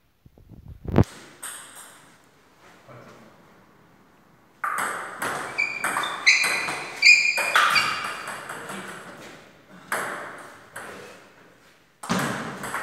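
Table tennis rally: a celluloid ball clicking off the paddles and bouncing on the table several times a second, each click leaving a short ring. A single heavier knock about a second in, and the rally picks up again near the end after a pause.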